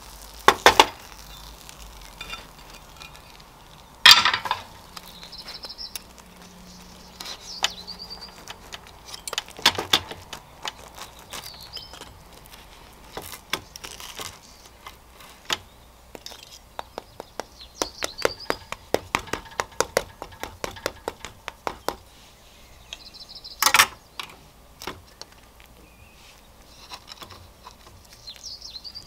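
Steel fork and knife cutting through a toasted sandwich on a wooden cutting board: crisp crunching of the crust with scattered clinks and taps of cutlery on the wood. There are a few sharp knocks as the uneven board wobbles on the table. Birds chirp faintly in the background.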